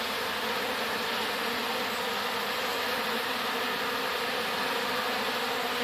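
A colony of honeybees buzzing steadily and densely. They are being driven out of their nest with Bee-Quick fume repellent.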